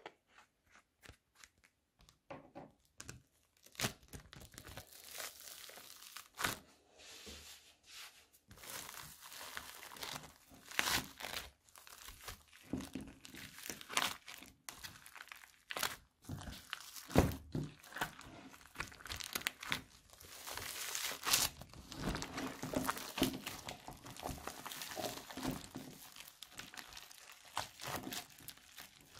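Hands squeezing and kneading crunchy floam slime packed with tiny foam beads, giving a dense, irregular crackling with louder crunches scattered through. It starts with a few faint clicks and becomes continuous about two seconds in.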